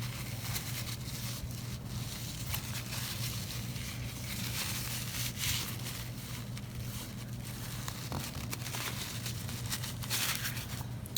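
Irregular rubbing and crinkling of a wipe worked over the hub to clear away excess red Loctite, over a steady low hum.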